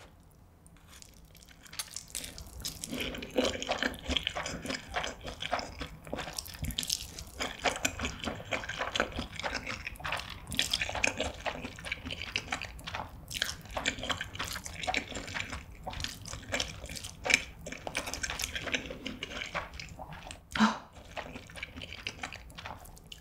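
Close-miked slurping and chewing of saucy spicy cheese stir-fried ramyeon noodles: a dense run of wet, sticky mouth clicks and smacks. Near the end, chopsticks toss the noodles in the bowl.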